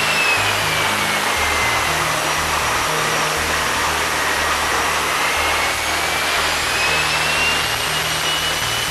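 Pratt & Whitney F119 afterburning turbofan running on a test stand inside an engine test cell: a steady rush of jet noise with a high turbine whine that falls through the first half and rises again near the end as the engine's speed dips and comes back up.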